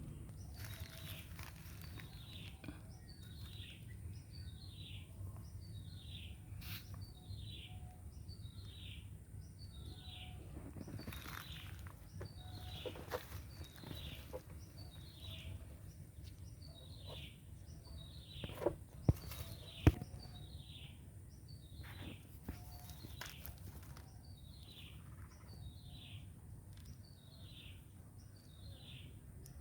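A bird repeating a short, high, falling call about once a second over a steady low background rumble. A few sharp knocks come about two-thirds of the way through.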